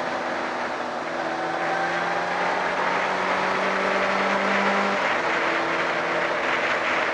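Honda CB600F Hornet's inline-four engine running at a steady cruise under heavy wind rush on the helmet microphone. The engine note changes about five seconds in.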